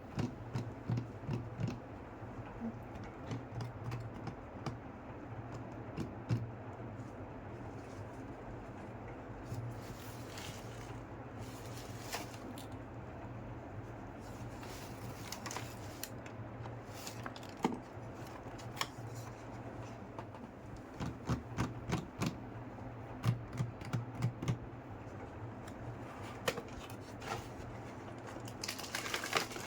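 Small plastic toy kitchen pieces being handled and unpacked: irregular light clicks and taps, coming in clusters, over a low steady hum.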